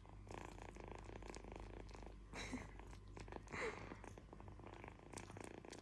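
Kitten purring steadily and softly, with two brief louder noises near the middle.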